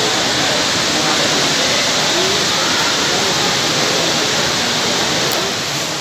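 Loud, steady rush of running water echoing inside a limestone cave.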